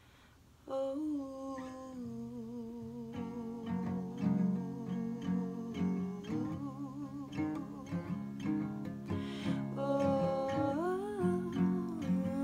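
A woman singing long held notes with a slight waver over a steadily strummed acoustic guitar. The guitar comes in about two seconds after the voice, and the voice slides up in pitch near the end.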